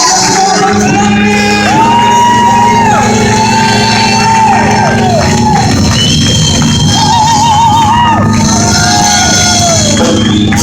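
Loud church praise music: held chords running steadily underneath, with voices shouting and singing long, gliding notes over them.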